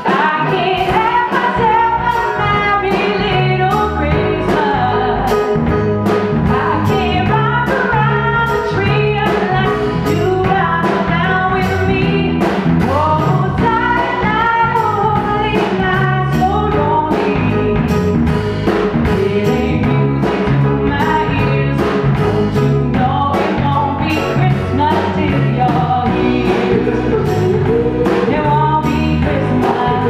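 A female singer performing a Christmas pop song live with a band, her voice over drums keeping a steady beat.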